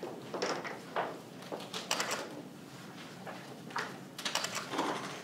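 A run of short clicks and knocks from handling, several of them in quick clusters, heard in a small, quiet room.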